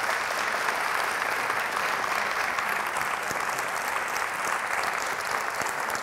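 Audience applauding, many hands clapping at a steady level.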